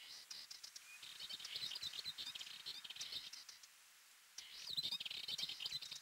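Rock bunting calling: runs of thin, high chirps in two bouts, with a short pause just before the halfway point of the second half.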